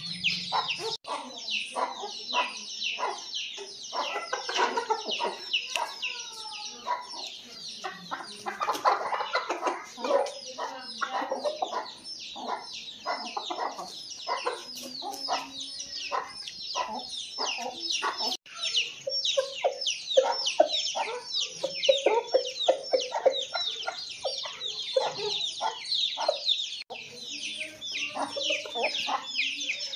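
Aseel chickens clucking, over a dense, continuous stream of rapid high-pitched chirping.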